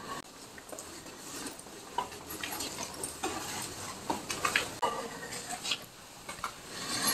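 Footsteps climbing stairs and walking over a floor strewn with grit and debris: scattered, irregular light scuffs and crunches.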